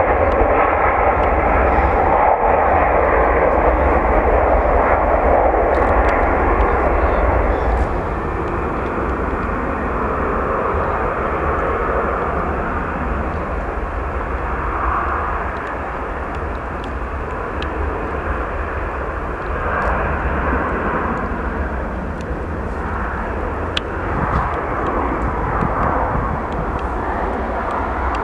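Jet airliner engines running at high power, loudest over the first eight seconds as a twin-engine Airbus A330 rolls down the runway, then a lower, steady jet engine noise with a continuous low rumble.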